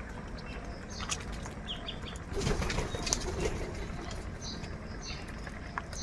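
Birds' wings flapping in a flurry about two and a half seconds in, the loudest sound here, among a gathering of crows, with a few short high bird chirps before and after.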